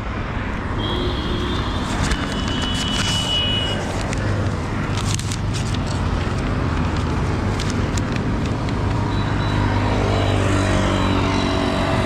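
Road traffic passing by: a steady rush of vehicles with a low engine hum, a high steady tone for a couple of seconds near the start, and a pitched engine sound growing louder near the end as a vehicle approaches.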